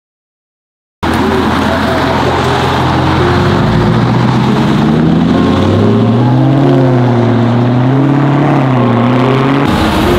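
After about a second of silence, a car engine runs loud. Its pitch wavers up and down several times in the second half as the throttle is worked.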